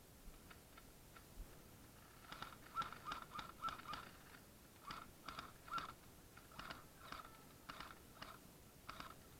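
Faint airsoft gunfire: quick runs of sharp clicking shots, starting about two seconds in, with short pauses between bursts.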